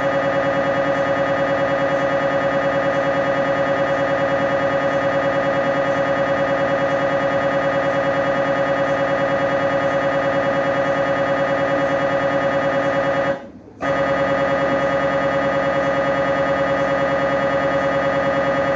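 MRI scanner's gradient coils sounding during a scan: a loud, steady, fast-pulsing electronic buzz with a strong mid-pitched tone. It breaks off for about half a second near thirteen and a half seconds in, then resumes.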